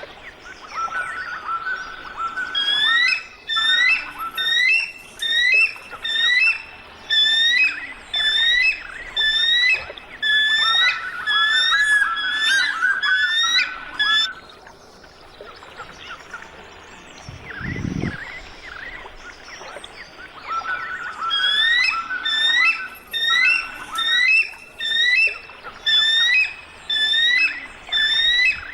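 Eagle calls: bouts of short, high, piping chirps about once a second. They break off for several seconds in the middle, when a low thud is heard, and then start again.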